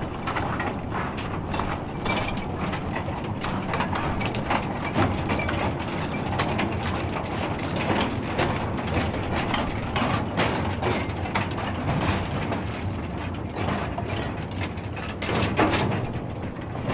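Narrow-gauge diesel locomotive running slowly with a train of goods wagons. Couplings, wheels and wagon bodies clank and rattle continuously over a steady low engine hum.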